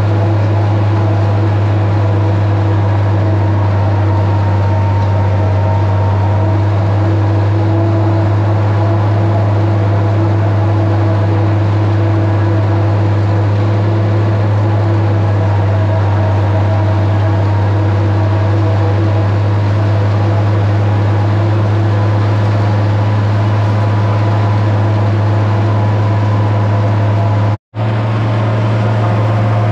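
International 1256 tractor's turbocharged six-cylinder diesel running steadily under load, driving a New Holland 790 forage chopper that is cutting and blowing corn. The sound cuts out for an instant near the end.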